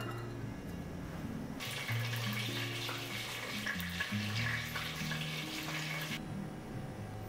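Soft background music, with a steady kitchen hiss that starts about a second and a half in and cuts off abruptly about six seconds in.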